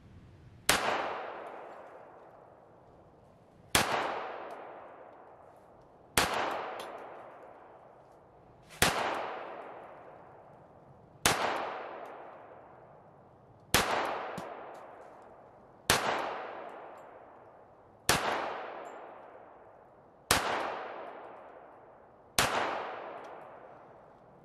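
HK45 .45 ACP pistol firing ten shots in slow, deliberate fire, one about every two to two and a half seconds, each report trailing off in a long echo.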